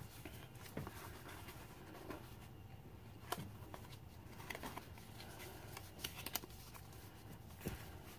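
Faint rustling of paper and card with scattered soft taps, as a card is slid out of a small paper envelope and the journal's pages and tags are handled.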